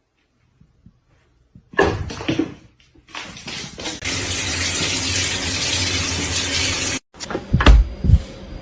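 Steady rush of running water for about three seconds that cuts off abruptly, preceded by a few scattered knocks. Two dull thumps follow near the end.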